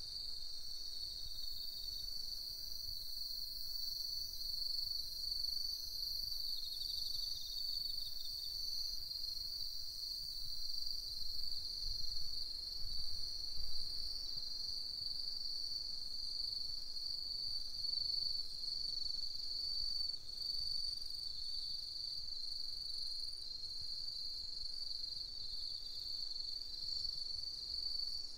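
Steady chorus of night insects: an unbroken high-pitched trill, with fainter, higher-pitched insect calls layered above it.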